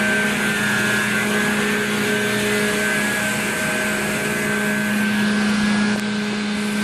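Condenser water pumps with 100-horsepower electric motors running steadily: a loud, even machine hum with a constant low tone and a few fainter higher whines over a steady rush.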